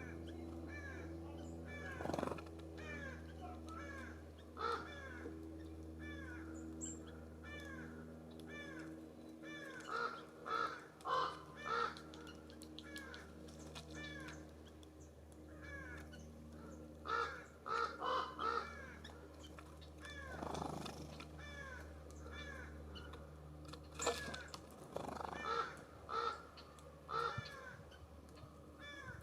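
Birds calling at a feeder: repeated short, harsh calls, some in quick runs of two to four, with fainter calls between, over a steady low hum.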